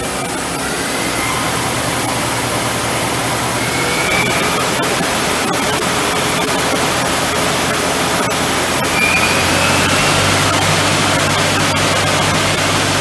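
Mori Seiki SL-35A CNC lathe running: a steady, loud mechanical hiss with a low hum that grows stronger about nine seconds in, and a few short rising whines.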